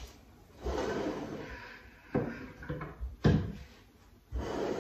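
Large bamboo cutting board being pulled out from against the kitchen wall and handled: a wooden scraping, then two sharp wooden knocks, the second, a little past three seconds in, the loudest, and another scrape near the end.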